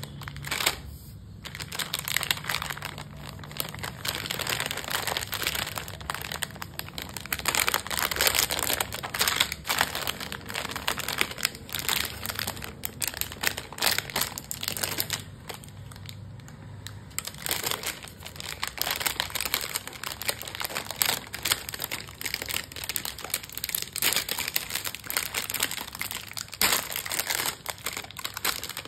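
Crinkly plastic wrapper of a packet of chocolate cupcakes being handled and pulled open by hand: continuous irregular crackling and rustling, with a short lull about a second in and another about halfway through.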